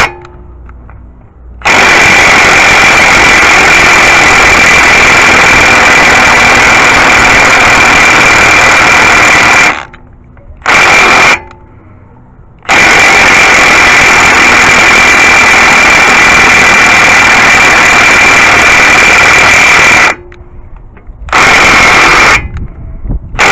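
Compact Milwaukee cordless impact wrench hammering in reverse on a 32 mm CV axle nut. It runs in two long bursts of about eight seconds each, with short blips between them, and fails to break the nut loose because its battery is not fully charged.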